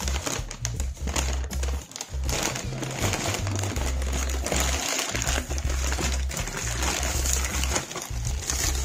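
Brown kraft packing paper crinkling and rustling as it is folded and pressed around a bundle by hand, over background music with a heavy bass line.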